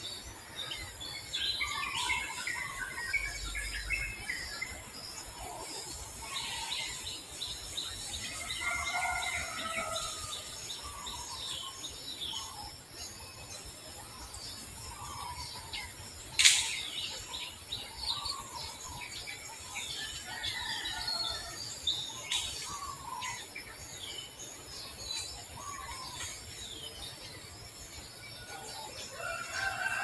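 Birds chirping in short, scattered calls over a steady high insect-like drone, with one sharp click about halfway through.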